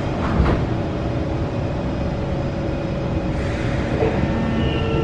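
Interior of a stationary C151 metro car after its doors have shut: a steady low rumble of the train's onboard equipment. There is a short knock about half a second in and a brief hiss about three seconds in, with faint steady tones beginning near the end.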